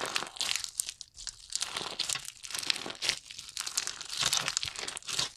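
Slime being worked by hand, squished and stretched, giving a dense crackling and crinkling of many small clicks and pops in uneven swells.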